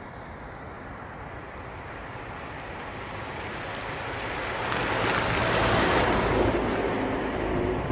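Toyota Carina TA12 driving past, heard from outside: mostly a rushing tyre-and-road noise over its OHV four-cylinder engine, growing louder to a peak about five to six seconds in and then starting to fade.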